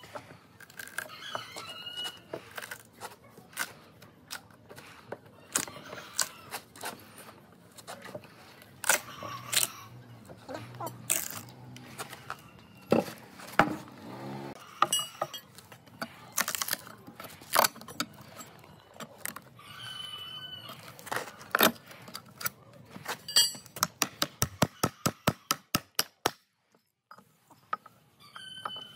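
Old wooden railway sleepers being levered apart with a steel pry bar: irregular knocks, cracks and splintering of the dry, weathered timber, with a quick run of sharp taps near the end.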